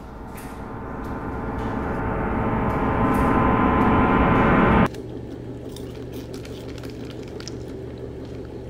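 A swelling, gong-like metallic drone with many steady ringing tones grows steadily louder and cuts off abruptly about five seconds in, leaving a low steady hum.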